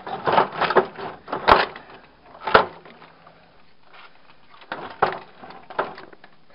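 Clattering and clicking of a television's plastic and metal parts handled as it is taken apart by hand and its wire connectors pulled off. Two sharp knocks come in the first few seconds, then a few softer clatters.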